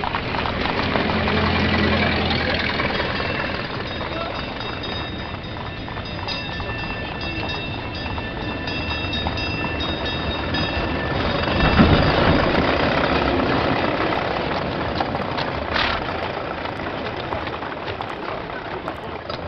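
Streetcar running on rails: a steady rumble and clatter of wheels on track, with a thin high whine for several seconds, swelling loudest about twelve seconds in.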